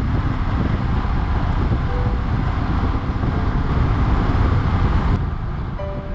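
Suzuki Boulevard cruiser motorcycle on the move at road speed: the engine running under a steady rush of wind and road noise. About five seconds in the hiss drops off abruptly and the sound turns duller.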